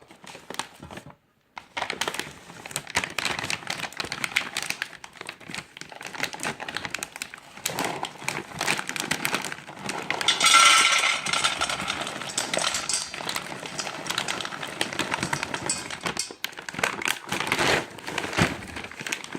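A stiff dog food bag crinkling and rustling as it is worked open by hand, with a louder burst of rustling about ten seconds in.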